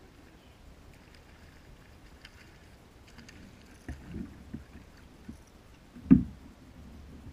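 Knocks and bumps against a plastic Perception Pescador 12 kayak's hull as a hooked fish is grabbed at the water and lifted aboard by hand, starting about four seconds in. A single sharp thump about six seconds in is the loudest.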